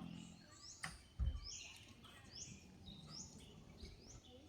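A bird calling in forest, a faint, short rising chirp repeated about every three-quarters of a second. A sharp click and then a low thump come about a second in.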